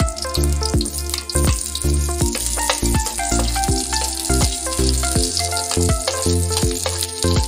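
Chopped garlic and onion sizzling in hot oil in a nonstick frying pan as a spatula stirs them, under background music with a steady beat and a moving bass line.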